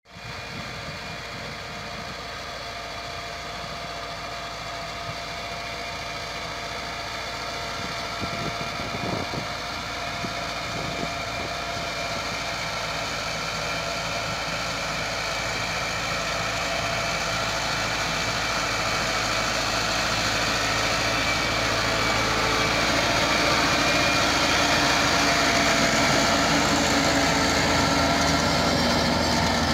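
Massey Ferguson 385 tractor's diesel engine running steadily as it pulls a rotavator through the soil, growing gradually louder as the tractor approaches and passes close by.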